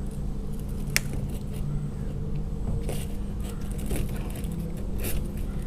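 Plastic hose and fittings being handled and pushed together to get a tight fit, with a few sharp clicks and small rattles over a steady low hum.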